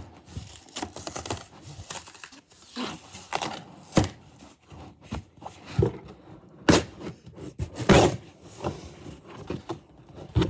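Cardboard flat-pack box being opened and handled: irregular scraping and rustling of cardboard, broken by several sharp knocks, the loudest about eight seconds in.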